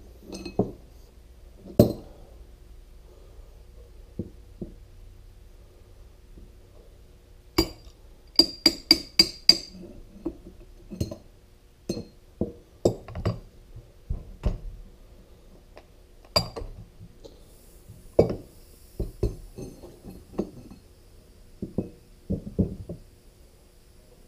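Steel tools and hydraulic-cylinder parts (tie rods, nuts) clinking and knocking as they are handled and set down during disassembly of a lift cylinder. Scattered single knocks, with a quick run of five or six bright clinks about eight to ten seconds in.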